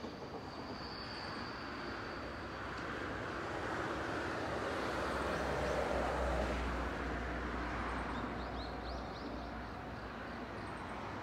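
Nankai Kōya Line electric train running along the line, its sound swelling to a deep rumble about halfway through and then easing away. A thin high whine is heard in the first few seconds.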